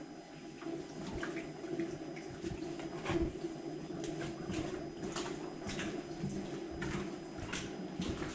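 Footsteps scuffing and crunching over loose rock on the wet floor of a mine tunnel, irregular knocks and scrapes, with water dripping over a steady low hum.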